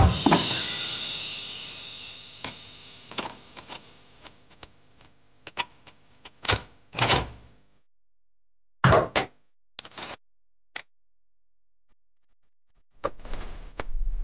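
Dial and latch of a small metal safe being worked by hand, heard as a sharp hit with a long fading ring, then a scatter of separate clicks and knocks. Music comes in near the end.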